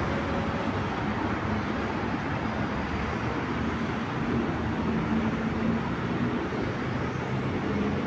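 Metro train approaching the station: a steady rumble with a low hum that swells a little near the middle.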